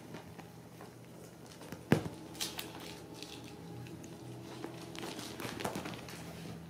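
Ragdoll kittens scuffling on a sofa cushion: soft patters, scrapes and rustles from their paws, with one sharp knock about two seconds in and another flurry of scuffles near the end, over a faint steady hum.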